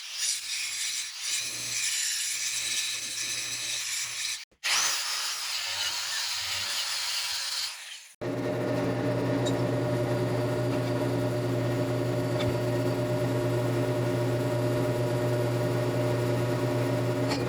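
Power tools working steel in short cuts: a harsh hissing cutting or grinding noise for about eight seconds, then a steady low motor hum.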